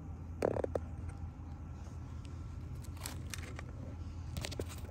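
Low steady background hum with a few short scuffs and crackles: one cluster about half a second in and two more near the end.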